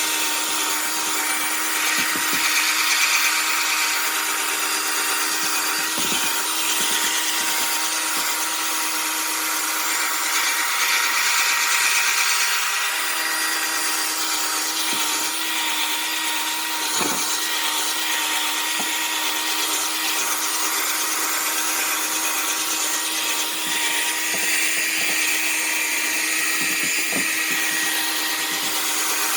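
Electric drill running steadily with a pad on it, buffing a plastic headlight lens: an even motor whine with a scrubbing hiss from the pad on the plastic.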